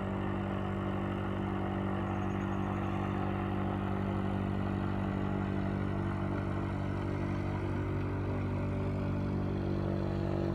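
An engine running steadily at a constant speed, its pitch and level unchanging.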